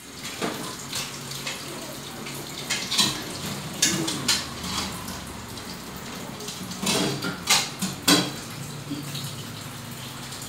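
Dishes and utensils clinking and clattering in irregular sharp knocks, several in quick clusters.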